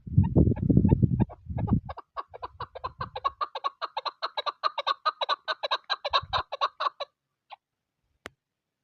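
Chukar partridge calling: a fast run of clucking notes, about eight a second, that builds up and stops abruptly about seven seconds in. A loud low wind rumble on the microphone fills the first two seconds.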